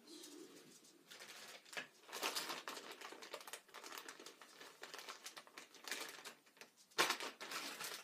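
Paper tissue rustling and crinkling as it is pulled out and handled, with a sharper crackle about seven seconds in.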